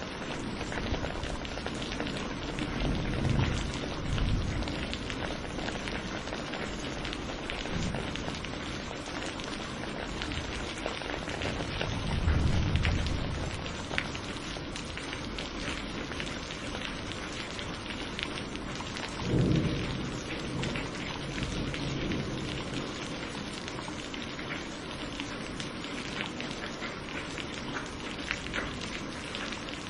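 Steady heavy rain pattering on surfaces, with three low rolls of thunder swelling up about three, twelve and nineteen seconds in.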